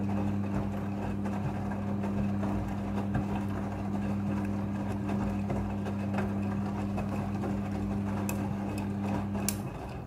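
Midea front-loading washing machine turning its drum of wet clothes: a steady motor hum with water and laundry sloshing as they tumble. Two sharp clicks come near the end, and the motor then stops.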